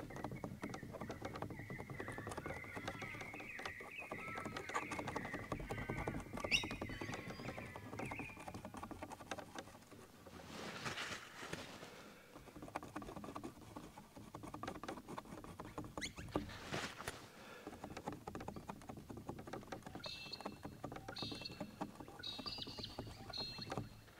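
Steel palette knife scraping and tapping thick oil paint onto a canvas board, in short strokes, with two longer scraping swipes about ten and sixteen seconds in.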